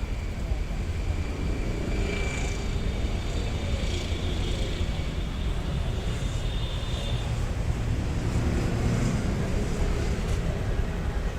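A steady low rumble of outdoor background noise, with no clear start, stop or rhythm.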